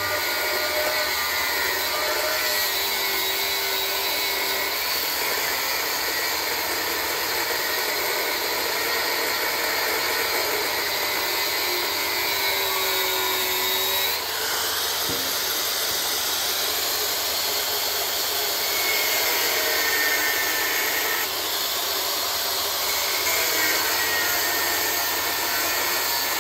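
Angle grinder with a cut-off disc cutting through 6-inch steel channel, running steadily under load, with a faint whine from the disc.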